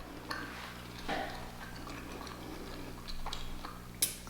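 Close-up eating sounds: a person chewing and handling seafood boil, with scattered small wet clicks and one sharp click about four seconds in.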